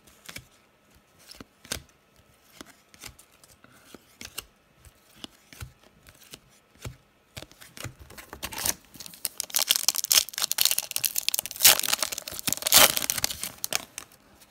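Baseball cards being flipped through a stack, making soft scattered clicks and slides. About eight seconds in, a card pack wrapper is torn open and crinkles loudly for several seconds.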